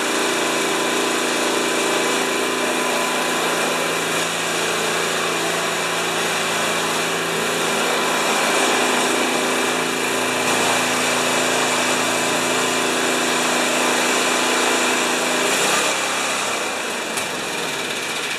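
Craftsman two-stage snowblower's Tecumseh engine running steadily; about sixteen seconds in, its pitch drops and it winds down as it is shut off.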